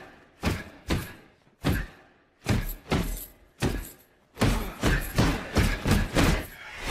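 Taped fists punching a hanging heavy bag: a run of dull thuds, spaced out at first, then coming faster, about three a second, in the second half.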